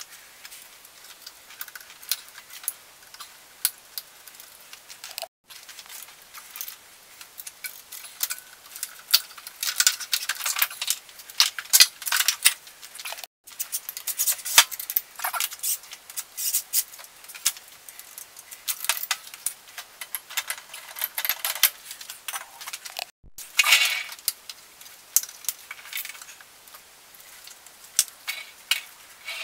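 Hand ratchet clicking and metal tools and bolts clinking while unbolting the alternator, in irregular bursts of quick ticks and clinks, broken by three brief dropouts.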